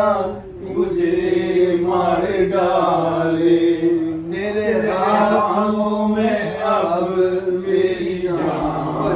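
A man's voice singing a Hindi film-song melody in long held, gliding notes, without instrumental accompaniment.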